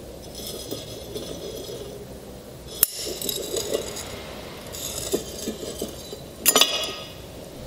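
Green glass bottle being turned against a glowing hot wire on a hot-wire bottle cutter, the glass scraping and clinking as it rolls. A sharp snap about three seconds in, and near the end a louder crack and clink as the bottle splits cleanly along the heated line.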